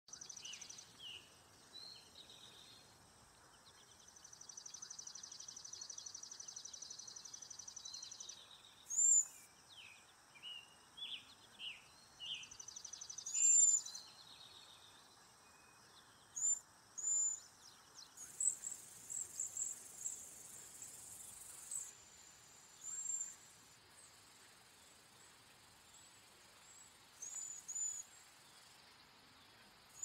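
Cedar waxwings calling: short, very high, thin whistles, repeated at irregular intervals. Lower chirps from other birds come in the first half.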